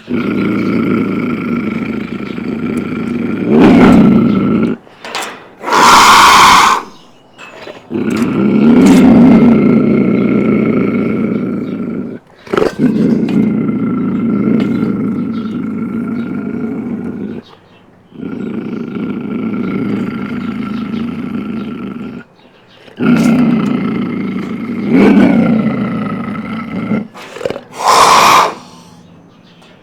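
Beast growl sound effects: a series of deep, drawn-out monster growls, each several seconds long with short breaks between them. Two short, harsh roars come about six seconds in and near the end.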